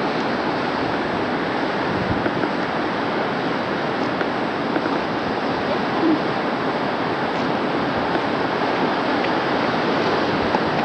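Steady, even rushing noise of sea surf at the shore, with a brief faint note about six seconds in.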